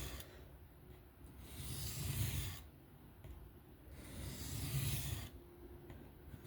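M390 steel knife blade scraping across a 325-grit sharpening plate in slow, even freehand passes. There are two strokes about a second long each, roughly two and a half seconds apart.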